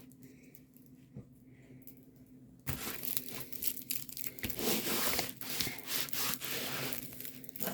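Plastic packaging crinkling and rustling as it is handled, starting suddenly a little over two seconds in after a quiet start.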